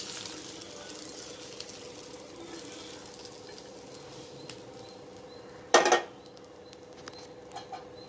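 Kitchenware handling over a faint steady hum: fried cashews and raisins slid from a steel pan onto cooked rice in a pressure cooker. About six seconds in comes a single short, loud clatter of kitchenware.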